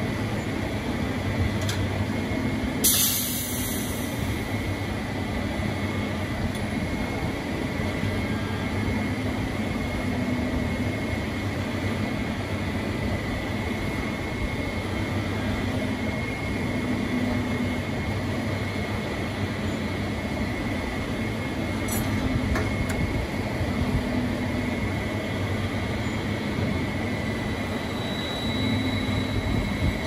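Oilfield pumpjack (beam pumping unit) running: a steady mechanical hum from its electric motor, V-belt drive and gearbox, with a low rumble swelling every few seconds and a faint steady whine. A brief hiss about three seconds in.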